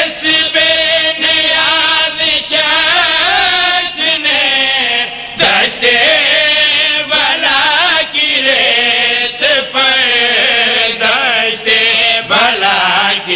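A man chanting an Urdu verse in long, wavering melodic lines into a microphone, with short breaks for breath.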